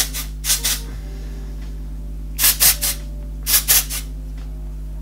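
Several short spritzes of Oribe Wave and Shine hair spray, coming in quick pairs and threes, over a low steady hum.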